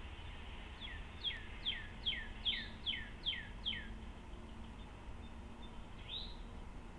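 A songbird singing a run of about eight clear notes, each sliding down in pitch, at two to three a second, followed by a single rising note near the end.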